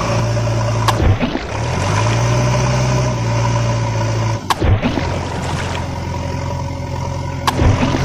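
Engine of a backhoe loader running steadily, broken by short sharp clicks and brief dips about a second in, at about four and a half seconds and near the end.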